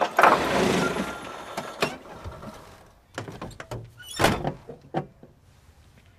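Cartoon sound effects of a small car. A loud slam with a crashing rattle comes right at the start, then a few scattered knocks and thuds, the loudest about four seconds in.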